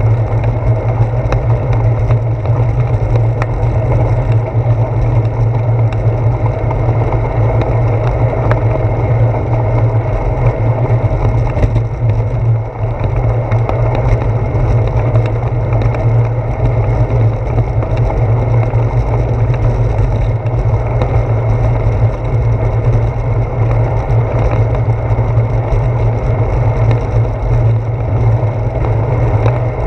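Bicycle rolling along a paved path, heard through a handlebar-mounted action camera: a steady low rumble of wind on the microphone and road vibration, with small rattles and knocks from the bumpy surface.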